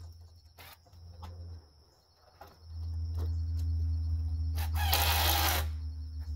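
Cordless power driver running a screw into the wooden wall framing in one short burst of just under a second, about five seconds in, over a steady low hum.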